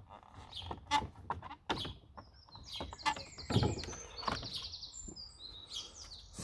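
Small birds chirping and trilling in the background, loudest around the middle, over scattered clicks and knocks of plastic parts being handled as tabs and fasteners on a vacuum cleaner's base plate are undone.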